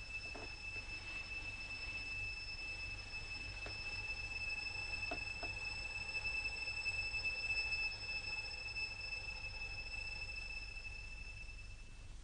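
A steady high-pitched whine, one tone with fainter overtones above it, over a low hum, with a few faint ticks. The whine fades out near the end.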